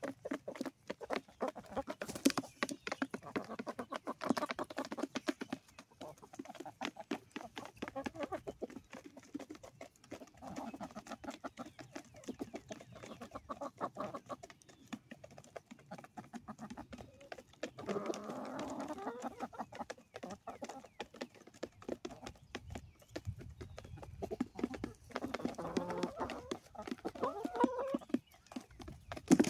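Chickens pecking cracked corn off a plastic chair seat: a rapid, continuous patter of beak taps. Clucking rises over it now and then, strongest twice in the second half.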